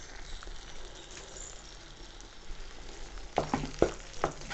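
Thick cornflour halwa sizzling faintly as it cooks in ghee in a pan. About three seconds in, a spatula starts stirring in the added red food colour, with several sharp knocks and scrapes against the pan.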